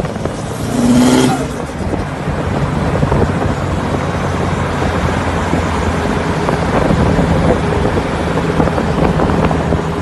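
Mitsubishi Lancer Evolution IX's turbocharged four-cylinder running under way, a steady exhaust drone with a rattle that the owner puts down to the exhaust. A brief louder burst with a falling tone comes about a second in.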